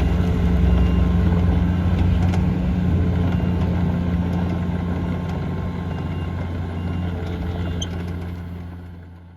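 Diesel engine of a Komatsu PC50MR-2 mini excavator running at a steady speed, fading away near the end.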